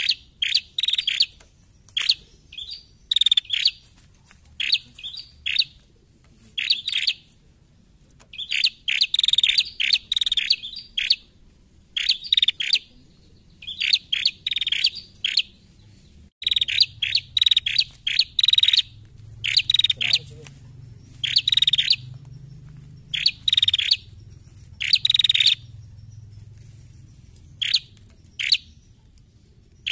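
Ashy tailorbird (prenjak kepala merah) calling in short bursts of sharp, high chirps, a burst every second or so, with brief pauses between groups. A faint low hum comes in about halfway.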